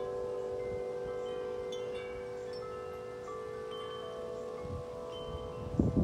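Several large tuned tubular wind chimes (Corinthian Bells and Bells of Vienna) ringing in the breeze: scattered strikes over long, overlapping ringing tones. Near the end, gusts of wind rumble on the microphone.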